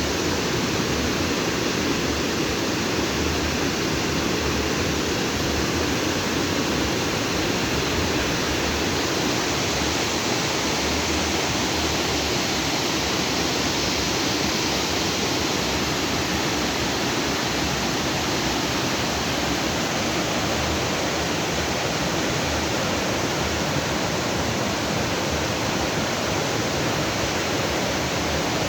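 Stream water rushing and splashing over rocks, a steady, even rush with no breaks.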